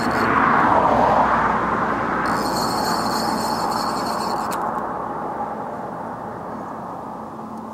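Baitcasting reel's spool whirring as line pays out on a cast. The whir starts loud, drops in pitch over the first second or so as the spool slows, then fades gradually.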